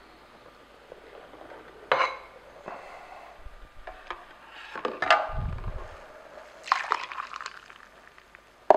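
A plastic juice jug and a drinking glass being handled, with a few short knocks and clinks, then pineapple juice poured from the jug into the glass near the end.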